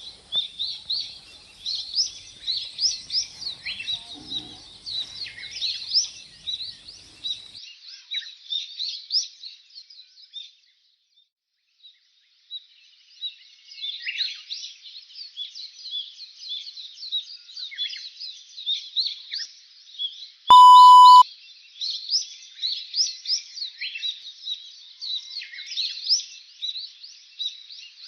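A dense chorus of many small birds chirping and twittering in quick overlapping calls. It drops out completely for about two seconds near the middle. Later a single loud steady electronic beep lasts under a second.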